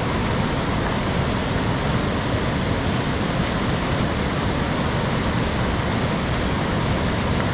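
Fast mountain river rushing over rocks: a steady roar of water.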